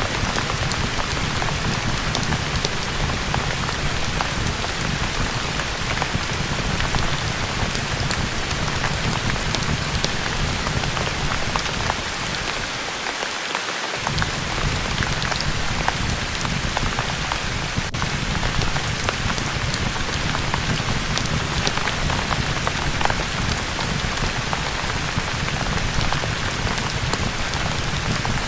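Steady rain falling, an even hiss with scattered sharp drop ticks. The low rumble underneath drops out for about two seconds near the middle.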